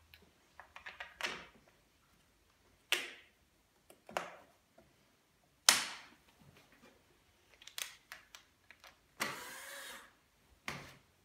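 Clicks and knocks of a screwdriver and screws being fitted into a stroller's plastic handle-height adjustment mechanism. The knocks are sharp and scattered, a second or more apart, and there is about a second of scratchy noise near the end.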